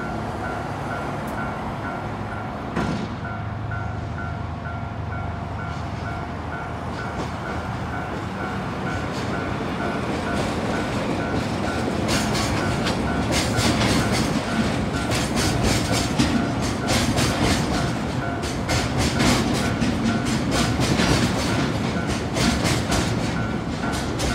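Freight train of oil tank wagons passing over a level crossing, with the crossing's warning bell ringing in a steady repeating pattern. From about halfway, the wheels clack rhythmically and louder over the rail joints as the tank cars roll by.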